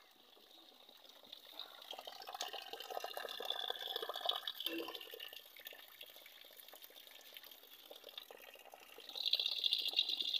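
Water trickling and splashing as a thin stream runs out of a drain pipe into a brick drain pit. It gets louder about two seconds in, eases off, and swells again near the end.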